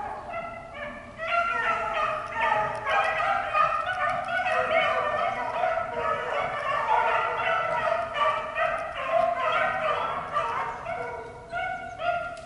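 A pack of beagles baying as they run a rabbit, several voices overlapping almost without pause; near the end the chorus thins to a few separate bays. Hounds give voice like this while they are on the rabbit's scent.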